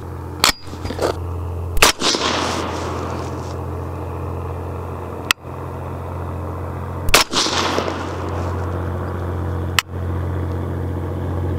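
A suppressed 6.5 Grendel AR-15 fires several shots spaced a few seconds apart. Each is a sharp report, some followed by a brief echo.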